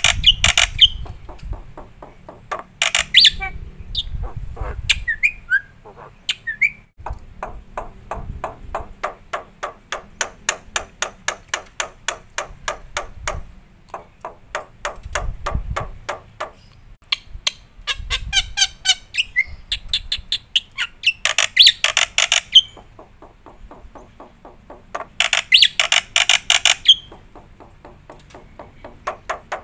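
Black-winged myna (jalak putih) calling in loud, harsh chattering bursts. Between the bursts runs a steady train of sharp clicks, about three a second.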